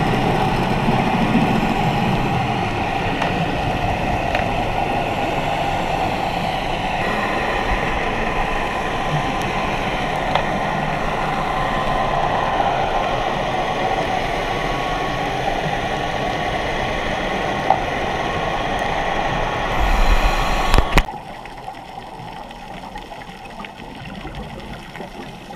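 Steady, muffled drone of a boat motor carried through the water, with faint whining tones over a dense hiss. It drops away sharply about 21 seconds in, leaving a quieter underwater hiss.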